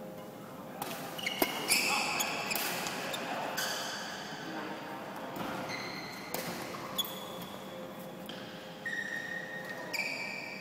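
Badminton being played on an indoor court: sharp hits of rackets on the shuttlecock and short high squeaks of shoes on the court floor, several times over.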